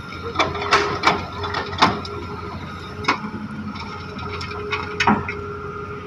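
Excavator working with its engine running steadily and a high whine, broken by about six sharp metallic clanks and knocks.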